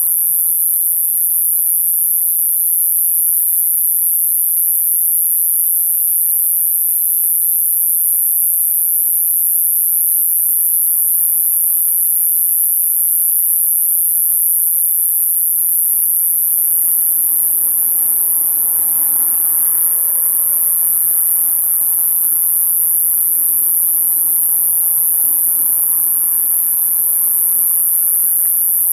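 Japanese conehead katydid (Euconocephalus thunbergi) calling: one continuous, very high-pitched buzzing trill without a break. A fainter low rushing sound swells and fades past the middle.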